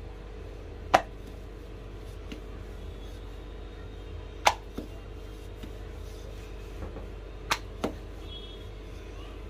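Wooden rolling pin knocking against a granite countertop while dough is rolled out: four sharp knocks, the last two close together, over a steady low hum.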